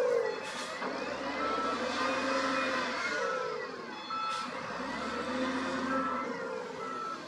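SDLG wheel loader's diesel engine revving up and down as the machine works back and forth, with a reversing alarm beeping in short, spaced beeps.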